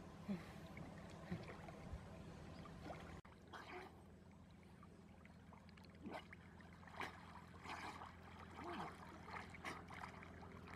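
Faint water sloshing and small splashes as a person wades chest-deep through a pond, over a low steady hum.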